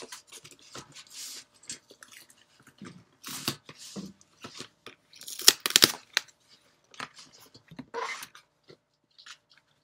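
Cardboard shipping box being opened by hand: tape tearing, flaps flexing and plastic packing material crinkling, in irregular crackly bursts, loudest about halfway through.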